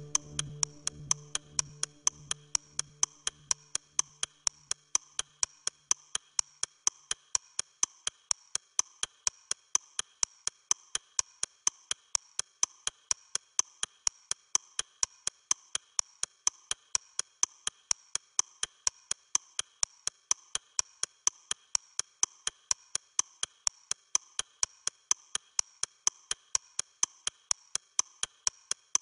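A clock ticking steadily and evenly, sharp and bright. Low sustained notes of background music fade out over the first five or six seconds, leaving the ticking alone.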